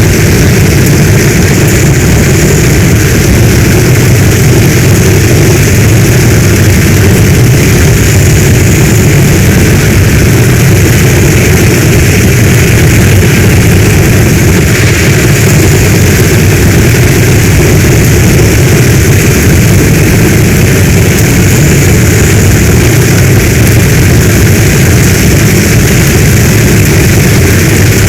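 Heavy storm rain pouring steadily: a dense, even hiss over a deep continuous rumble, with no breaks or single drops standing out.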